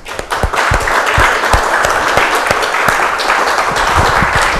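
Audience applauding, a dense patter of many hands clapping that breaks out at once and holds steady.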